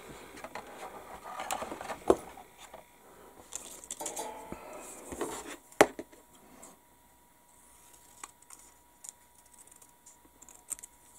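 Handling noise from a plastic B-17G scale model being turned over in the hands and laid down on a cutting mat: rustling with sharp plastic clicks and light knocks, the loudest knock about six seconds in, then only a few light ticks.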